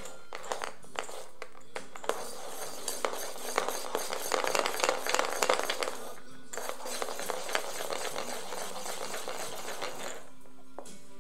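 Plastic baby rattle toy with stacked coloured rings being shaken and knocked against a wooden floor, a dense clattering rattle. It is loudest in the middle, pauses briefly a little after six seconds, and stops about ten seconds in.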